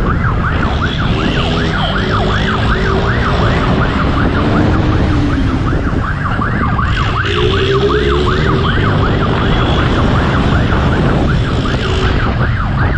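Police siren in a fast yelp, its pitch sweeping up and down about four times a second, over a steady low rumble of engine and road noise from the chase at speed.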